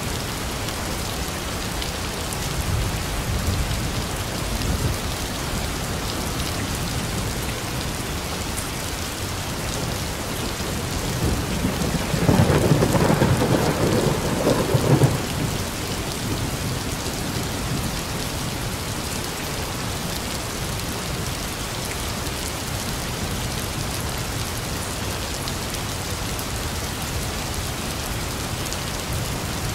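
Heavy rain falling steadily, with a low roll of thunder a few seconds in and a louder rumble of thunder about midway that lasts about three seconds.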